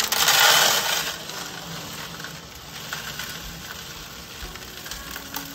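Small coloured aquarium gravel poured from a plastic bag into a glass tank, pattering and rattling onto the bottom. The stones hit loudly for about the first second, then trickle more quietly.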